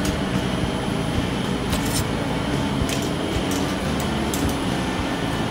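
Steady low machinery drone in a commercial kitchen, with a few light clicks.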